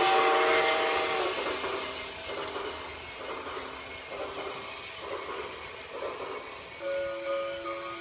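Toy train set running on its plastic track: the locomotive's electronic steam-whistle sound, a steady chord of several tones, ends about a second in. The wheels then rattle round the track, and the whistle sounds again near the end.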